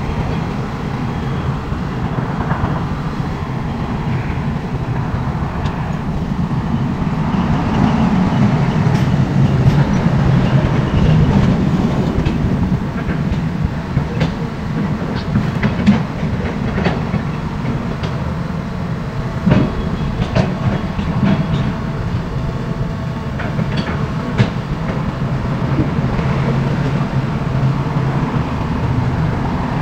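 SANY hydraulic excavator's diesel engine running steadily as it digs, with a few sharp metallic knocks from the working machine in the second half.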